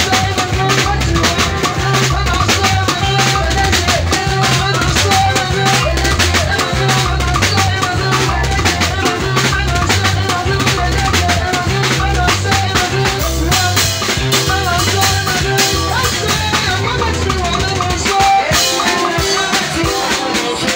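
Amplified live band playing: a drum kit with snare and bass drum over a repeating bass line, with guitar and other instruments on top. The bass line drops out near the end.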